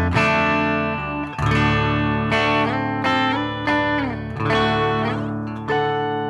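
Electric guitar played through a BOSS GT-1000 amp modeller on a low-gain crunch setting, both pickups selected with the back pickup's tone rolled back slightly. It plays ringing, sustained chords struck about once a second, with a couple of sliding or bent notes in the middle.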